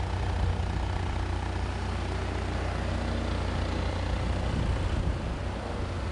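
Steady low rumble of a running vehicle, with an even hiss over it.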